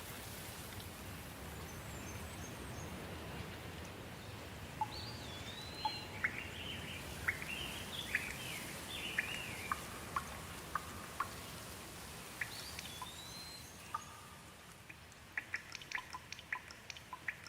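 Steady rain falling, with a songbird singing a phrase of quick whistled notes that slide up and down, several seconds in and again briefly later. Near the end, a quick run of sharp water drips begins.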